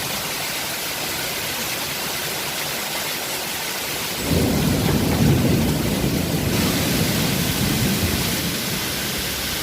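Heavy rain pouring steadily, with a rumble of thunder that starts suddenly about four seconds in, rolls on for a few seconds and slowly fades.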